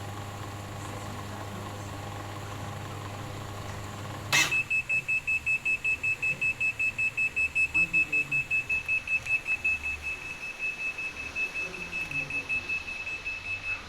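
Ramtons top-load washing machine humming steadily, then a sharp click about four seconds in and a rapid high-pitched beeping alarm, about four beeps a second. This is the alarm of a machine that will not spin because of a drain motor problem.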